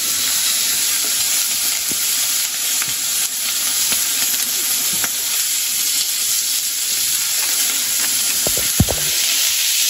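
Hot oil sizzling steadily in a frying pan on a gas burner, with small crackles throughout and a single knock near the end.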